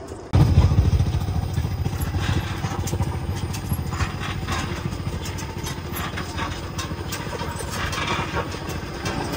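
A motor vehicle's engine running steadily with a fast, even low pulse, starting abruptly about a third of a second in.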